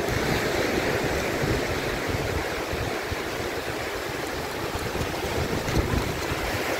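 Sea waves breaking and surf washing up onto a sandy beach, a steady rush of water.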